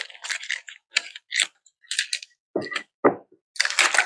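A wooden board being handled: a string of short clicks, scrapes and light knocks, with a few heavier knocks about two and a half seconds in.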